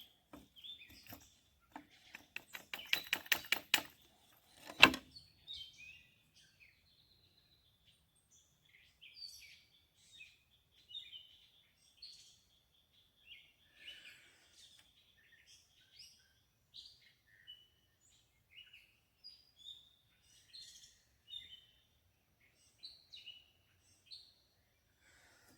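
A short run of quick rubbing strokes, typical of a bow drill being sawed, ends in a sharp knock about five seconds in. After that come wild birds' short chirps, scattered over the rest.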